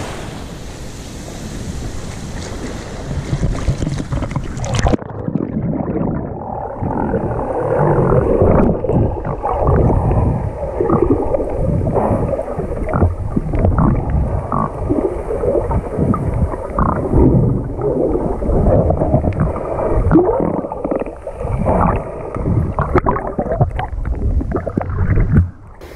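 Sea surf and wind on the microphone for about the first five seconds. Then the sound turns suddenly muffled, with all the high end gone: irregular sloshing and gurgling of sea water around a camera under the surface. It cuts off abruptly near the end.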